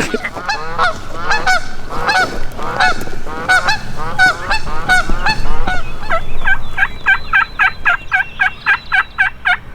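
Turkey call worked by hand to imitate a hen: scattered yelps and clucks, then a faster, even run of yelps at about four a second over the last few seconds.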